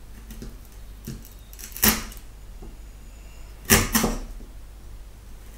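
A bench chisel pushed by hand through wood, making two short crunching cuts about two seconds apart as chunks of wood split away from a halving-joint notch.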